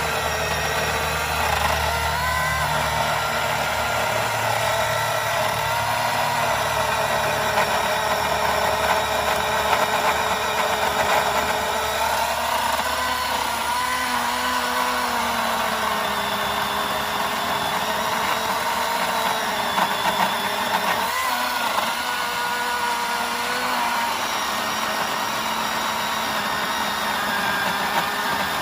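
Milwaukee Fuel battery chainsaw cutting into a big tree trunk, its motor whine wavering up and down in pitch as the load on the chain changes. A low steady rumble sits underneath for the first several seconds.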